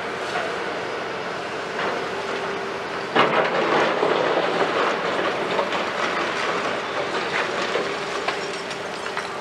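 Hitachi 210 hydraulic excavator running steadily, its bucket coming down into a pile of broken concrete rubble about three seconds in and digging through it, with loud crunching and clattering of debris that eases toward the end.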